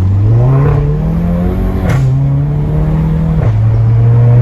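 2015 Volkswagen Golf GTI's 2.0 TSI turbocharged four-cylinder accelerating hard, its engine note rising, then dropping in pitch at two quick DSG upshifts, about two seconds in and again about three and a half seconds in. A sharp exhaust pop ('pipoco') cracks at each shift; the hosts put this down to the turbo coming in and the modified muffler.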